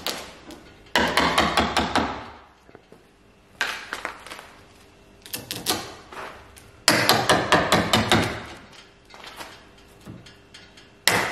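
Small hammer tapping in several quick runs of sharp strikes, each run lasting about a second, along the lip of a fibreglass boat hull and its mould, driving plastic wedges in to work the hull free of the mould.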